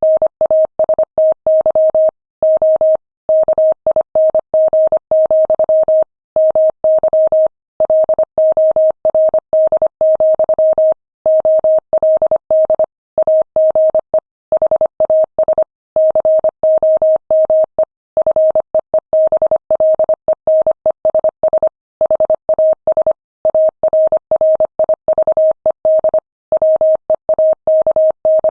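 Morse code sent at 25 words per minute: a single steady, mid-pitched beep keyed on and off in short dots and longer dashes, with brief gaps between letters and longer ones between words.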